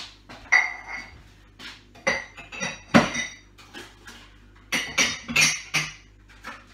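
Cups clinking and knocking against each other and a hard surface as they are set down and arranged: a series of uneven clinks, several ringing briefly.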